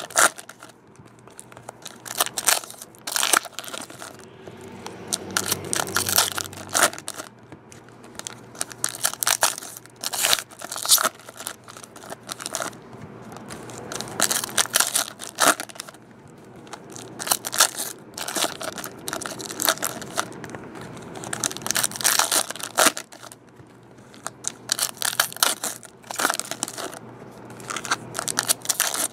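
Foil wrappers of 2014 Prizm Soccer trading-card packs being torn open and crinkled by hand, in quick, irregular bursts, one pack after another.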